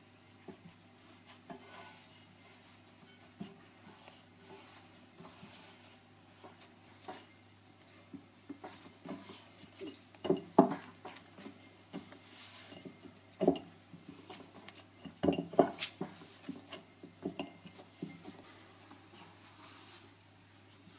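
Kitchen utensils and dishes knocking and clinking in irregular handling, with a few louder knocks about ten, thirteen and fifteen seconds in.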